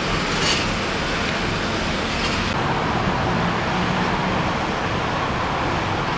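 Steady road traffic noise, a continuous wash of passing cars with no distinct events.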